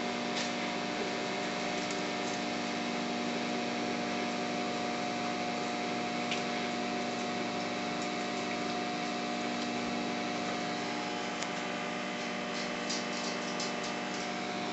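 A steady machine hum holding several constant tones, with a few faint clicks near the end.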